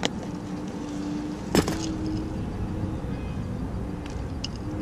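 Steady hum of road traffic with drifting engine tones. A sharp click about a second and a half in is the loudest sound, with a few light ticks near the end.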